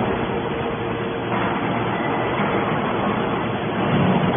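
Hydraulic scrap metal baler running: a steady drone of its motor and pump over workshop noise, a little louder near the end.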